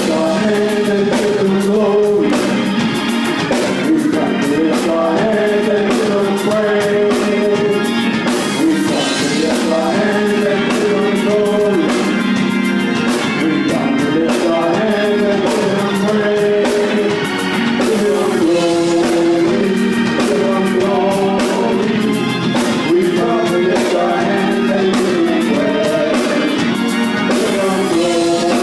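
Gospel worship song: voices singing a melody over instrumental accompaniment, steady and loud throughout.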